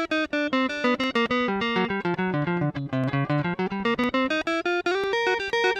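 Electric guitar played through a Zoom G1X ON multi-effects pedal on its Z-Clean amp model, clean tone. It plays a quick single-note melody of about five or six notes a second, falling in pitch, then climbing back, and it settles on a held note near the end.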